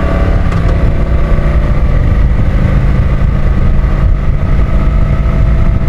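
Kawasaki Vulcan 900's V-twin engine running steadily while the motorcycle is ridden at a constant speed.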